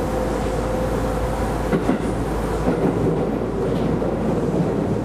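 Keisei Line electric train running, heard from inside the carriage: steady rolling noise with a hum, and a few knocks of the wheels over rail joints about two seconds in.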